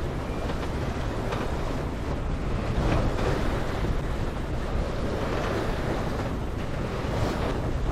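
Wind buffeting the microphone over the rush and splash of waves against a sailboat's hull as it sails fast, heeled hard in rough water, with surges of water noise about three seconds in and near the end.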